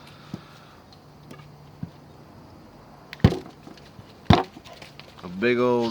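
A few faint clicks, then two sharp knocks about a second apart, as a budget multitool is handled.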